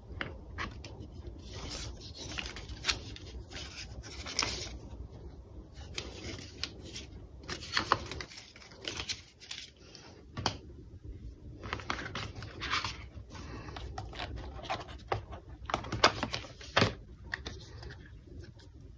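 Paper and cardboard packaging handled by hand: scattered scrapes, rustles and small taps as inserts and the paper-wrapped charger are lifted out of the box tray, with one sharper click near the end.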